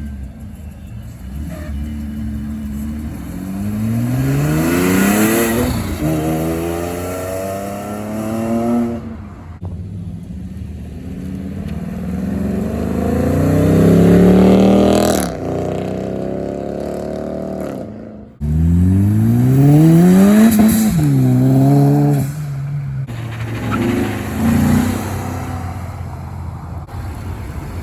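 Car engines accelerating hard, one pull after another, each climbing in pitch and dropping back at the gear shifts. The loudest pulls come in the middle and about two-thirds of the way through, and the last one starts suddenly.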